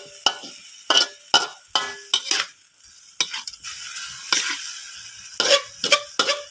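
Metal ladle scraping and clanking against a large metal wok in irregular strokes as diced pork and holy basil are stir-fried, with sizzling between the strokes.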